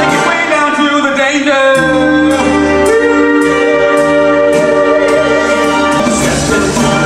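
Band music for a stage dance number: held brass chords that shift a few times over a steady beat.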